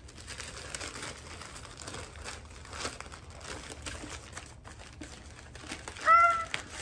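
Gift-wrapping paper crinkling and rustling as a wrapped book is unwrapped by hand, with a short high exclamation from a woman about six seconds in.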